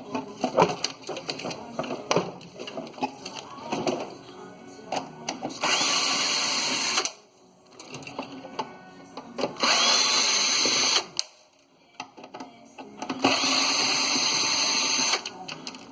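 Power drill backing out screws in three runs of about one and a half to two seconds each, after several seconds of clanking as metal furnace parts are handled.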